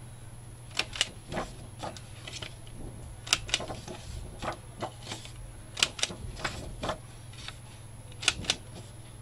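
Hand-held corner rounder punch clipping the corners of a paper sheet: sharp mechanical clicks in quick pairs as the punch snaps shut and springs back, four times about two and a half seconds apart, with lighter paper-handling clicks in between.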